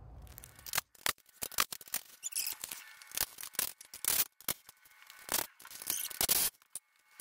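Irregular clicking and clattering of hand-tool work on the cross member's bolts: many short, sharp clicks and knocks at an uneven pace.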